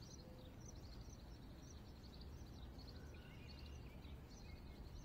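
Quiet outdoor ambience: faint, scattered bird chirps and a few short whistled notes over a low, steady background rumble.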